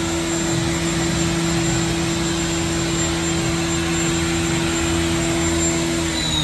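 Haas EC-1600 horizontal machining center's CAT 50 spindle running at a steady speed: a steady high whine and a lower hum over mechanical noise. It starts winding down, its pitch falling, right at the end.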